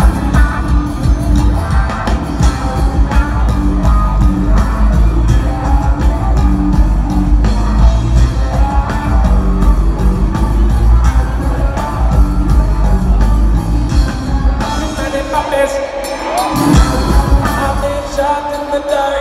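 Live rock band playing loudly, heard from the audience: a heavy bass-and-drums groove with vocals over it. About fifteen seconds in, the low bass drops away for a few seconds, leaving the higher parts, then comes back.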